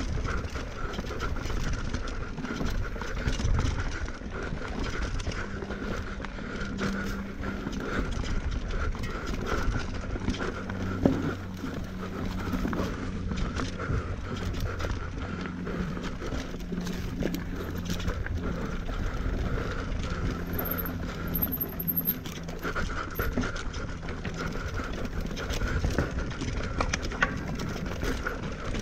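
Mountain bike ridden down a rough enduro trail: the continuous clatter and rattle of chain, tyres and frame over rocks and roots. There is a sharp knock about eleven seconds in.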